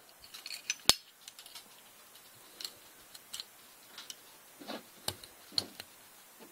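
Small sharp clicks and taps of a Taurus PT 24/7 Pro pistol's parts being handled as the recoil spring is fitted into the slide over the barrel. The sharpest click comes about a second in, with softer scattered clicks after it.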